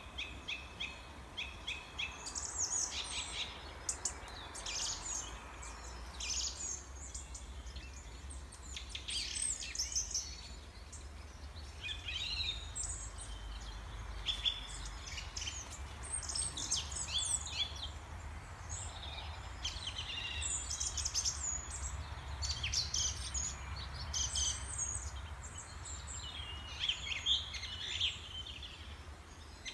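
Small songbirds chirping and trilling in many short high calls, over a low steady rumble.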